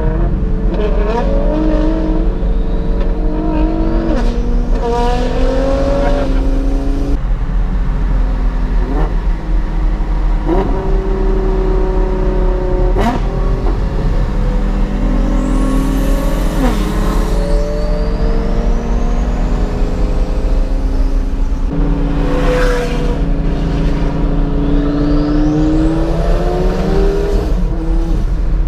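Lamborghini Gallardo's V10 accelerating hard through the gears, heard from inside the cabin. The engine pitch climbs, breaks and drops at each upshift, then climbs again, several times over.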